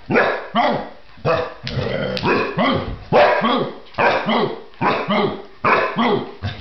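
A large dog barking over and over, a quick series of loud barks about two a second, each rising and falling in pitch.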